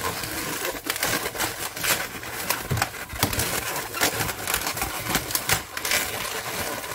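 Latex 260 modelling balloons rubbing and squeaking against each other and the hands as an orange balloon is twisted into a loop bubble, with many irregular short squeaks and crackles.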